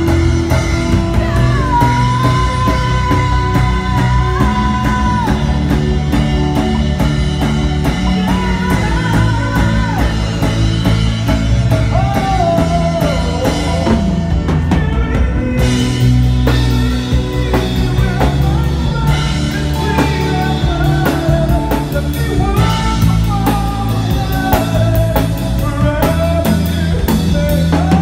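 Live worship band playing, with keyboard, drum kit and electric guitar under a singer's voice holding long, sliding notes.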